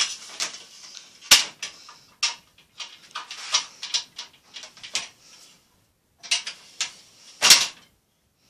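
Three-section aluminium loft ladder being slid up and folded away: the metal sections sliding against each other with a run of clanks and clacks, a loud clank about a second in and the loudest one near the end as the ladder settles.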